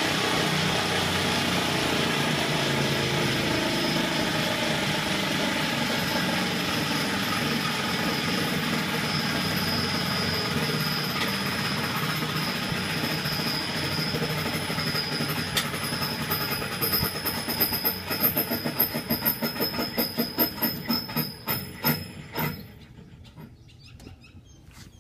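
Small gas-turbine engine with a single-piece centrifugal compressor running down: a steady whine and rush that, about two-thirds of the way in, breaks into rapid rhythmic scraping pulses, about four a second, then stops suddenly a few seconds before the end. The rubbing at the end of the run-down calls for a check for play in the compressor's mounting shaft.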